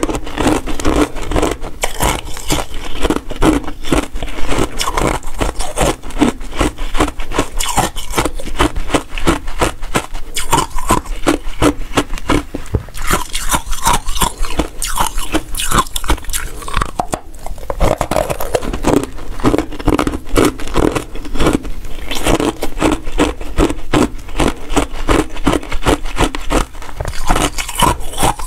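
Basil-seed ice crunching and clicking in quick, continuous crackles, with a brief lull a little past the middle.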